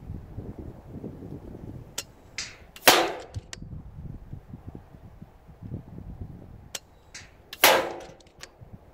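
FX Crown MkII Compact .177 PCP air rifle firing two shots about five seconds apart, each a sharp crack with a short fading tail. A faint click and a brief hiss come just before each shot.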